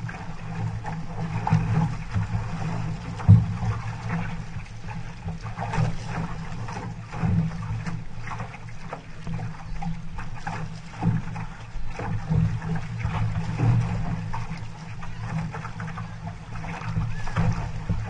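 Water rushing and splashing against a six-person outrigger canoe's hull as the crew paddles through chop, in irregular surges every second or two. A single sharp knock comes about three seconds in.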